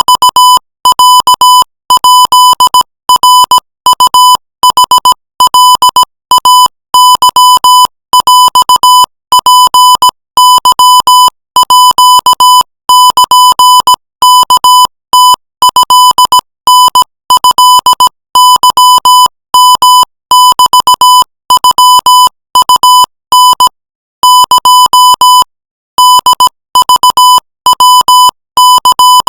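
Morse code sent at 20 words per minute as a single steady beep tone keyed on and off in quick dots and dashes, with a longer word pause about four-fifths of the way through. It is spelling out Thai-language text.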